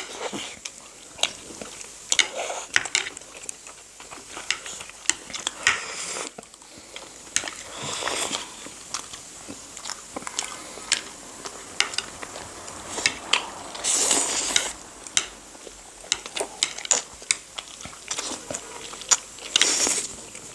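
Eating sounds: utensils clicking and clinking against bowls, with biting and chewing of noodles and momos in soup. Two longer, louder stretches of eating noise come about fourteen seconds in and near the end.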